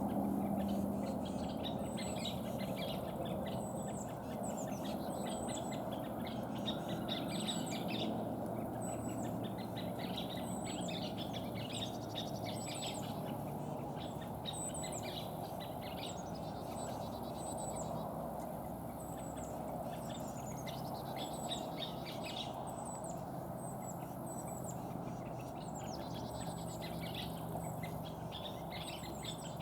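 Scissor-tailed flycatchers calling over and over in sharp, high chattering notes, the ruckus the uploader takes for alarm at a nearby American kestrel. A steady low rumble of background noise runs underneath.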